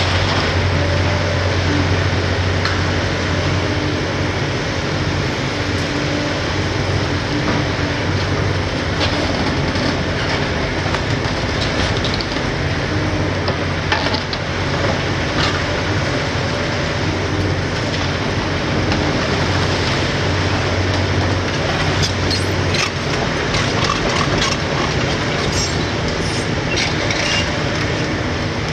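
Hitachi ZX870LCR demolition excavator's six-cylinder Isuzu diesel running steadily under hydraulic load as its crusher attachment works the concrete floors. Scattered cracks and clatters of breaking concrete and falling debris, thickest near the end.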